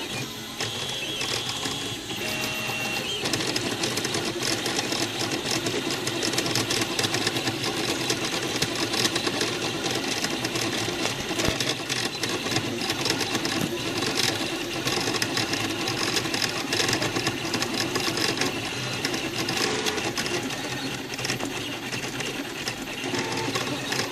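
Wooden-framed 3D printer running a print: its stepper motors whir and buzz in quick, changing-pitch moves as the print head and bed shuttle back and forth.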